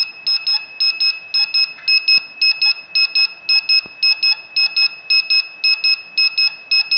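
The alarm buzzer of a DIY Arduino temperature and humidity module beeping at one high pitch in quick pairs, about two pairs a second. This is the high-humidity alarm: the humidity reading is still above the 67% threshold, so the alarm keeps sounding.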